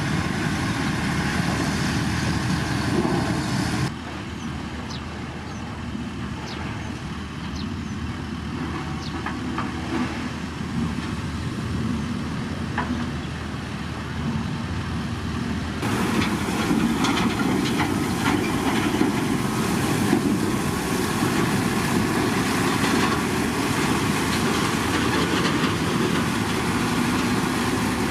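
Diesel engine of heavy road-construction machinery running steadily, with scattered clicks over it. The sound drops about four seconds in and comes back louder about sixteen seconds in.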